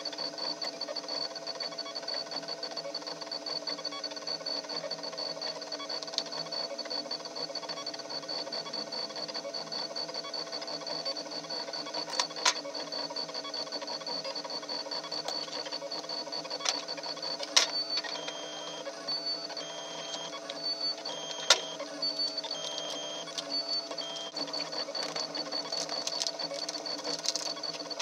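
A 3D printer's stepper motors running steadily with a high whine, the pitch stepping on and off in places as the motors move. A few sharp knocks stand out over it.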